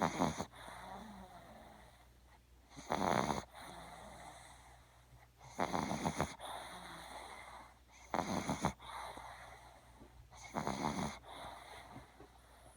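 A small puppy snoring loudly in her sleep: five loud snores, about one every two and a half seconds, with quieter breathing between.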